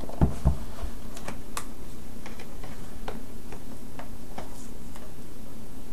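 Scattered light clicks and taps of a cardboard presentation box and its paper insert being handled, over a steady low background hum.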